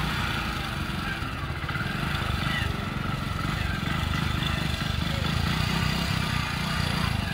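Small commuter motorcycle's engine running steadily at low revs near idle, the pulsing even throughout, as the bike creeps forward in a slow race.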